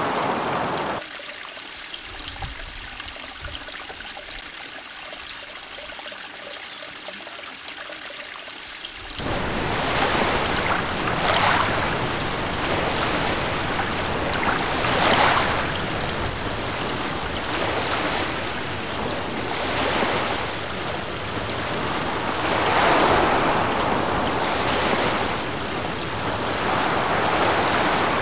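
A quieter, dull rushing hiss, which changes about nine seconds in to a louder, fuller rushing noise that swells and fades every two to three seconds, like surf breaking.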